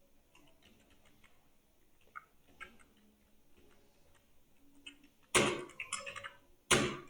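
Computer keyboard typing: scattered, irregular key clicks, with two much louder clattering bursts about five and a half and nearly seven seconds in.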